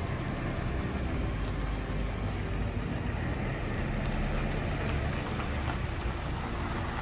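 Steady road noise and engine hum heard from inside a moving vehicle.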